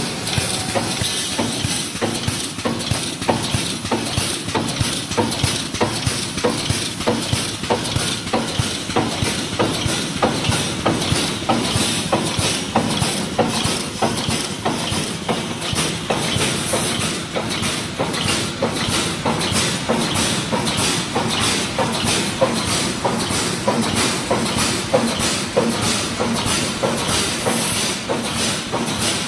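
Pneumatic fence-panel mesh welding machine running, its air cylinders driving the row of welding electrodes down onto the wires with a hiss and a sharp clank, about two weld strokes a second in a steady rhythm.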